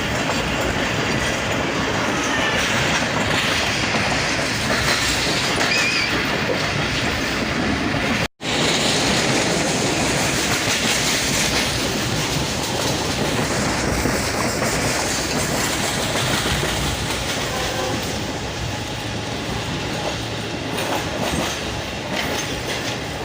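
Passenger train running fast on the track, a dense, steady rumble and clatter of wheels on rails. The sound drops out for a split second about eight seconds in.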